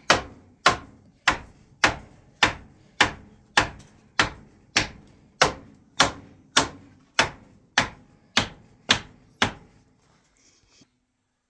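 A hammer striking the shelter's wooden poles in a steady, even rhythm, a little under two blows a second, about seventeen blows that stop near the end.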